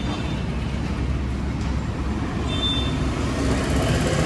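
An engine running steadily at idle: a continuous low rumble.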